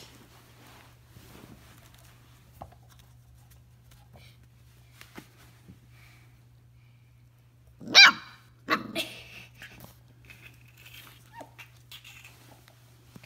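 Puppy barking: one sharp, high bark about eight seconds in, followed quickly by two more shorter barks.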